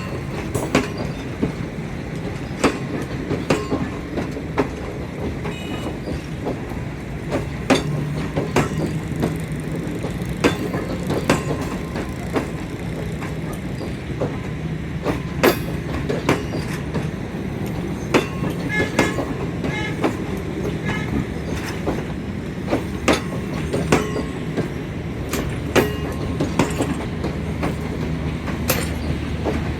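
Passenger train coaches rolling past, their wheels clacking over rail joints again and again over a steady low rumble.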